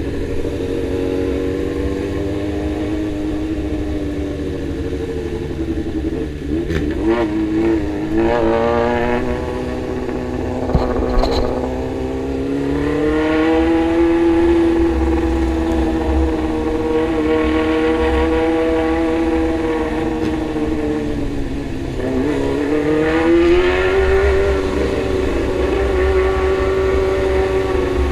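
Motorcycle engine running on the move, its note holding steady, then dropping and climbing again twice as the throttle is eased and opened. A few short knocks sound along the way.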